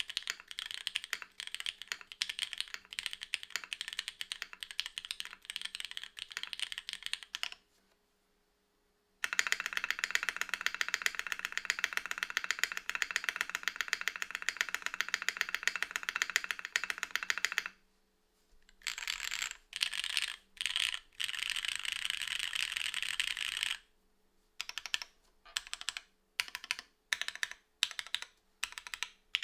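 Typing on a JJW Gradient R0 mechanical keyboard with Cherry MX2A Black linear switches in an O-ring-mounted aluminium plate, under SP DCS keycaps. Steady typing breaks off briefly about seven seconds in, then comes a long stretch of very fast, dense keystrokes, another short pause, and near the end single separate key presses.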